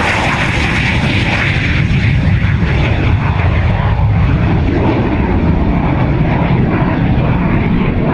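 Aero L-39 Albatros jet trainer's turbofan at full power on take-off. The high whine fades after about three seconds as the jet climbs away, leaving a steady low rumble.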